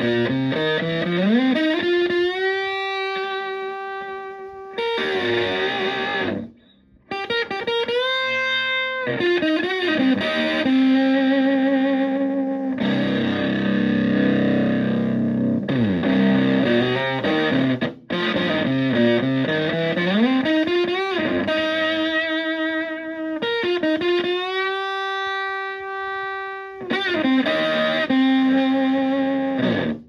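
Stratocaster electric guitar played through a Tone Bender MK1.5-style fuzz pedal into a Fender Twin Reverb-style amp: sustained fuzzy lead notes with wide string bends and vibrato, with a couple of short breaks.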